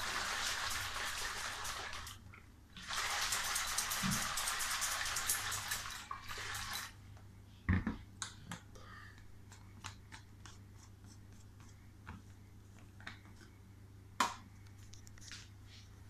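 Yeast-and-water mixture poured from a plastic bottle into a 5-litre plastic jerrycan onto set gel, in two spells of splashing pour, the second a few seconds long. A few light knocks and clicks follow as the bottle is handled.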